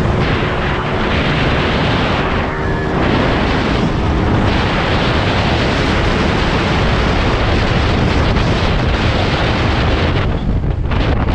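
Loud wind buffeting on the microphone of a Kawasaki KMX two-stroke dirt bike riding at speed, with its engine running steadily underneath.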